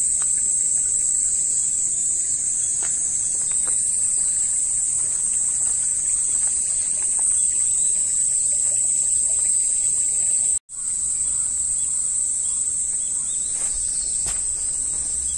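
Insects shrilling in one steady, unbroken high-pitched drone, which cuts out for an instant about two-thirds of the way through.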